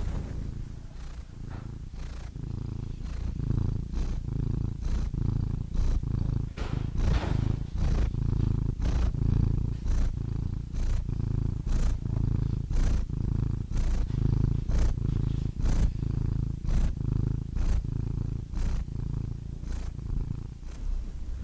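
Domestic cat purring steadily: a low rumble that swells and eases with each breath, about once a second.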